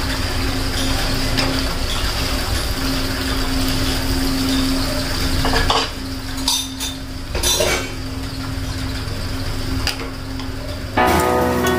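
A metal spatula clinks and scrapes against a kadai of kadhi a few times, over a steady hum. Music comes in near the end.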